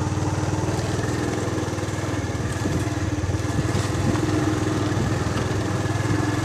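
Small single-cylinder four-stroke engine of a Honda Wave 110 underbone motorcycle, running at a low, fairly steady speed as the bike is ridden slowly along a narrow dirt trail.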